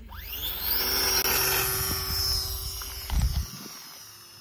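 The small electric motor and propeller of an XK A220 P-40 Warhawk RC plane whine up in pitch as the throttle opens for a take-off from the ground. The whine then runs steadily, slowly fading and dropping a little in pitch as the plane moves away. A brief low rumble comes about three seconds in.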